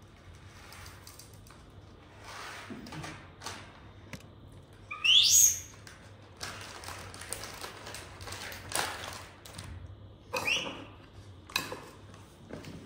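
Pet monkey giving high squeals that rise sharply in pitch, a loud one about five seconds in and a shorter one near the ten-second mark, with rustling and handling noises in between.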